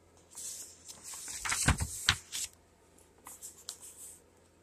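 Pages of a picture book being turned by hand: paper rustling, with two soft thumps about a second and a half and two seconds in, then a few light taps.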